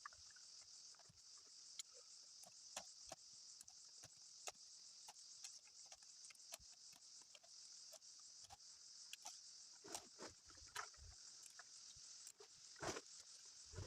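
Faint, steady high chirring of crickets, with scattered light clicks and rustles.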